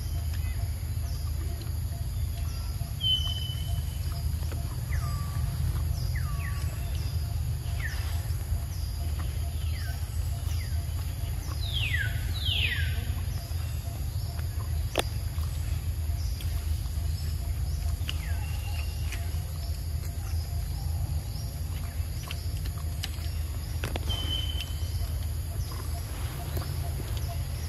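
Outdoor ambience of birds and insects: scattered short, falling whistled bird calls, the strongest a pair near the middle, over a steady high insect drone and a low rumble.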